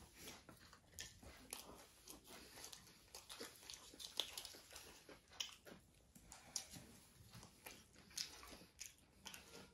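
Faint, irregular crunching and mouth clicks of a person biting and chewing a burger with a crispy aloo tikki patty.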